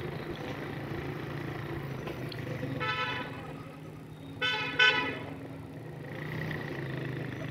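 Vehicle horn honking twice: a short toot about three seconds in and a louder, longer one about a second and a half later, over a steady low rumble of street traffic.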